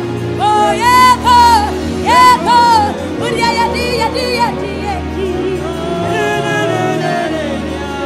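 A woman singing a gospel song into a microphone over a band accompaniment. Her loud, high sung notes slide in pitch through the first three seconds, and then she goes on more softly.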